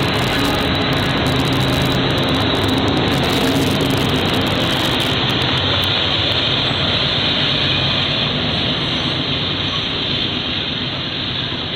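GE Evolution-series diesel locomotives with GEVO-12 V12 engines passing close by, a loud steady rumble with a low engine hum that fades over the first few seconds. Loaded coal hopper cars follow, rolling on the rails with a steady rushing rumble that eases slightly near the end.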